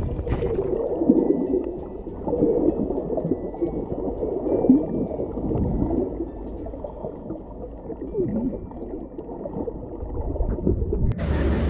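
Muffled underwater water sound of a camera below the sea surface: uneven gurgling and bubbling, dull with no high end. Just before the end it switches abruptly to a steady open-air rumble.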